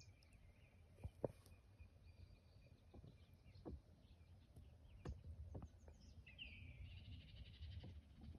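Faint birds chirping and calling, with one clearer call about six and a half seconds in. A few soft knocks, the loudest about a second in, over a low rumble.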